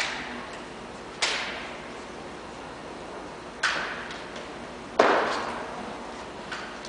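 Four sharp slaps and knocks from armed drill, a drill rifle being handled and passed between cadets with stamping footwork on a wooden gym floor, each one echoing in the large hall. The loudest comes about five seconds in.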